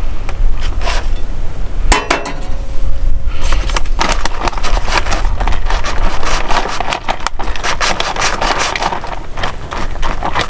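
Wind buffeting the microphone, with a dense run of crackling and scraping noises that thickens from about a third of the way in.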